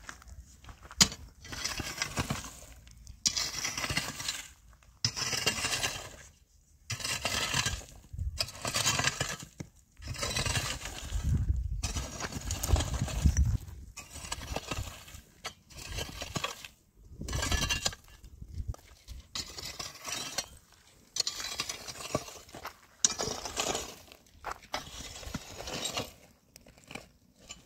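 Metal shovel scraping and scooping gravel and stony rubble over and over, one stroke about every second and a half to two seconds, with stones clinking and grating against the blade.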